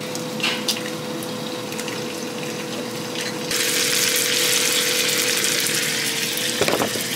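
Shrimp and sausages sizzling in a hot oiled frying pan, the loud steady sizzle cutting in abruptly about three and a half seconds in. Before it, a couple of light clicks as eggs are cracked, over a faint hiss and a steady hum.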